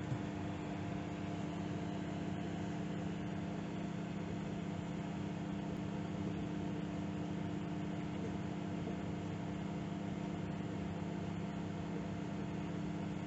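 Microwave oven running a heating cycle on a cup of water: a steady, even hum with a constant low drone and fan noise.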